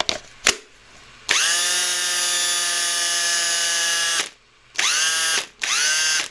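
A couple of sharp clicks as the battery pack is pushed onto a Makita cordless drill, then the drill's motor winds up to speed and runs steadily for about three seconds, followed by two short trigger bursts. The drill is running on an 18 V BL1830 lithium-ion battery just recharged on an alternative charger, showing the battery works.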